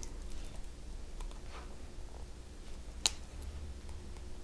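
Small clicks and light scraping of steel chain-nose pliers working copper bead-cap paddles down against a stone bead, with one sharp click about three seconds in.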